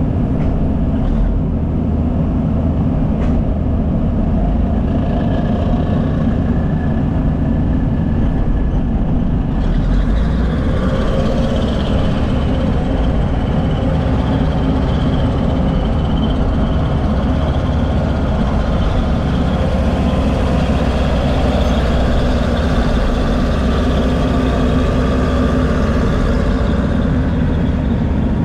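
Diesel earthmoving machinery, a crawler dozer and an excavator, running loud and steady under work, with higher-pitched tones joining the engine sound about ten seconds in.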